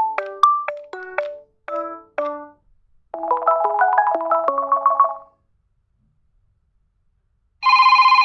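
Nokia 2.3 ringtones previewed one after another: a chiming melodic ringtone ends, a short fast-note melody follows about three seconds in, and after a pause of a couple of seconds a classic telephone-bell ring starts near the end.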